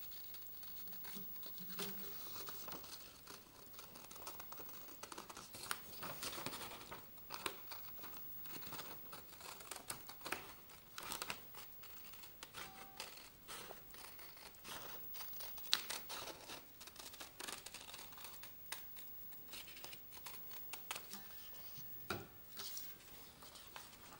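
Scissors snipping through a sheet of paper in a run of short cuts, mixed with the crackle and rustle of the paper sheet as it is turned and handled.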